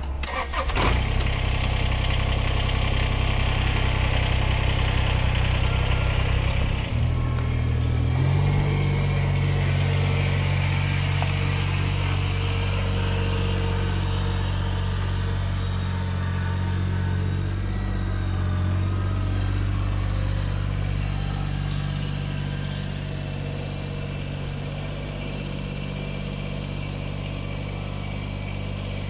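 Kubota BX25D compact tractor's three-cylinder diesel engine running steadily. About eight seconds in it revs up a little and then holds the higher speed as the tractor drives.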